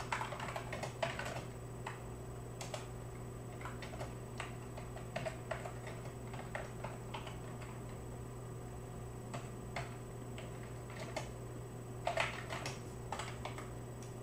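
Typing on a computer keyboard: irregular key clicks, some in quick runs, with a denser run about twelve seconds in, over a steady low electrical hum.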